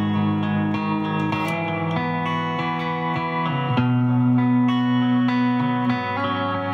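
Electric guitar played through an amplifier in an ambient style: long ringing chords that blend into one another, with a new chord struck just before four seconds in.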